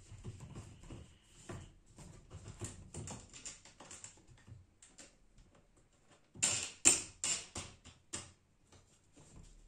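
Small irregular clicks and taps of a wing nut being turned onto the end of a roller bar on a wooden embroidery frame stand, with a louder clatter of knocks about six and a half to seven seconds in.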